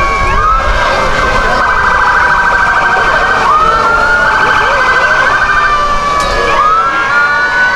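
Several fire truck sirens sounding at once, overlapping wails rising and falling over one another. They are broken by two stretches of fast, rapid-pulsing yelp, and one wail climbs and holds near the end.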